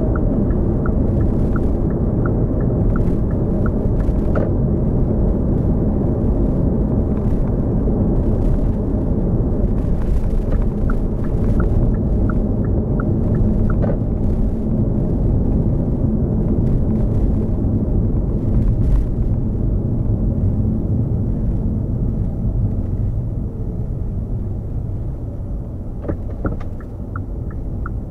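Steady low road and tyre rumble from a moving Hyundai Kona Hybrid. Twice, a run of light, evenly spaced ticks lasts a few seconds: once at the start and again about ten seconds in.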